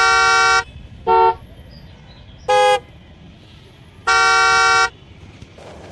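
A car horn honking four times: a long blast, two short toots, then another long blast, each a two-note horn chord.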